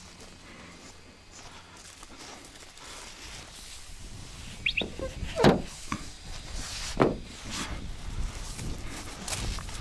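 Wind rumbling on the microphone, growing stronger after a few seconds, with several sharp knocks and thumps from about halfway through.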